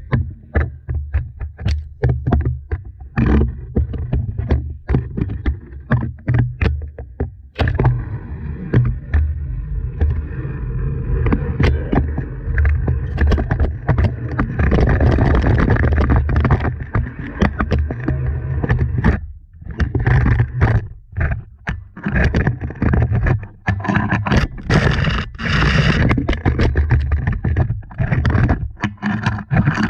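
Camera pole knocking and scraping against the walls of a drilled dry-well borehole as it is lowered, with repeated sharp knocks, low rumbling handling noise, and stretches of steadier scraping.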